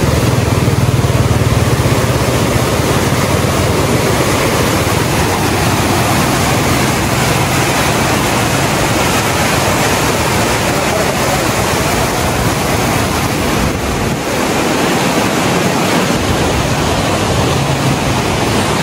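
Fast mountain river rushing through whitewater rapids: a loud, steady rush of water.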